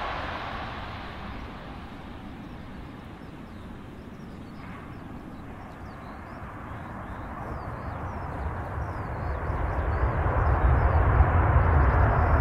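Boeing 737 airliner's jet engines after touchdown. The engine noise fades to a low steady rush, then rises again over the last few seconds into a loud low roar as reverse thrust is applied to slow the jet on the runway.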